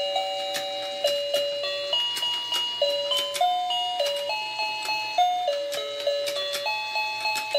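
Electric rotating fishing-game toy playing its built-in electronic tune, a simple melody of clean beeping notes stepping up and down, with light plastic clicks from the turning pond and fishing rods.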